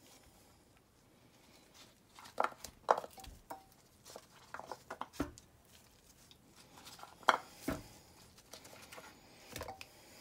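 Carrots, onion quarters and whole potatoes being set by hand into a ceramic slow-cooker crock, with irregular light knocks and taps against the stoneware and a handful of sharper clunks.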